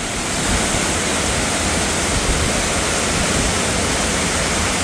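A waterfall's steady rushing roar. The falls are running full with rainy-season water.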